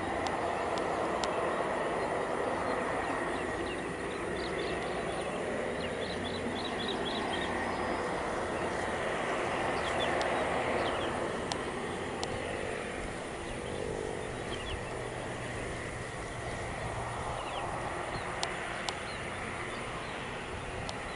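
Twin PT6A turboprops of a Beechcraft King Air 350i running at taxi power: a steady rushing hiss with a high turbine whine. It grows a little louder about ten seconds in, then eases off.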